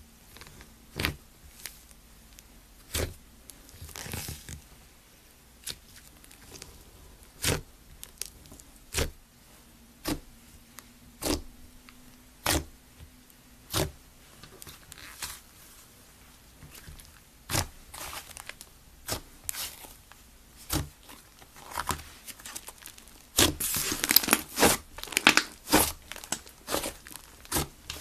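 Fingers poking and pressing pink fluffy slime, giving sharp pops about every second or two. Near the end comes a dense, louder run of crackling and tearing as the slime is pulled and stretched.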